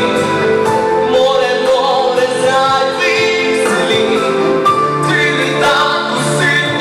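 A man singing a song into a handheld microphone over instrumental accompaniment, holding long notes.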